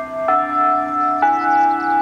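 Electronic bell-tone chime from the town's outdoor disaster-warning loudspeaker. Slow single notes, about one a second, each ringing on under the next.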